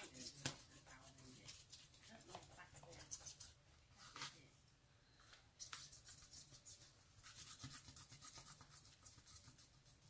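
Quick scratchy back-and-forth rubbing of a rubber eraser block over paper, in spurts with a quieter pause around the middle, as it scrubs bits off the sheet.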